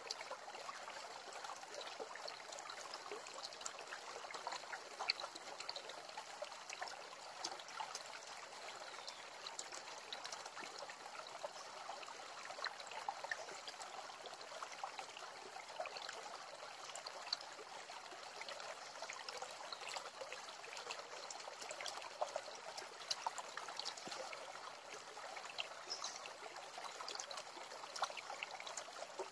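Shallow stream running over rocks, a steady rush of water.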